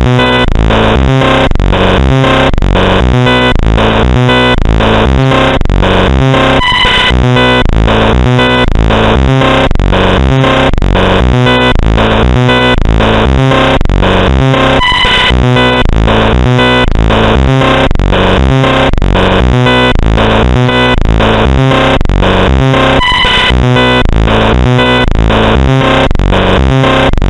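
Emergency Alert System–style alarm made of loud synthesized tones pulsing in a fast, steady rhythm, with a brief higher tone cutting in about every eight seconds.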